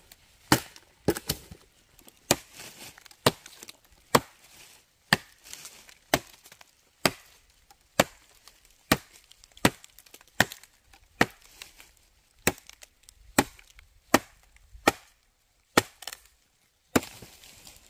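Machete chopping into a dead wooden branch: sharp strokes about once a second, a few followed quickly by a lighter second stroke.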